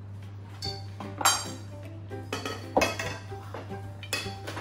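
White metal tubes of a flat-pack rack clinking and clattering against each other as they are handled, several sharp ringing clinks, the loudest about a second in and again near three seconds in. Background music plays underneath.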